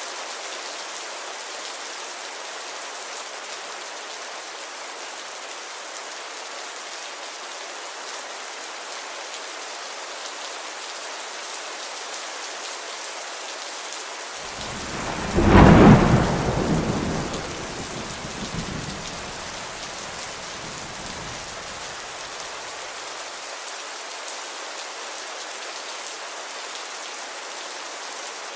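Steady rain falling, with a single thunderclap about halfway through that cracks loudly and then rumbles away over several seconds.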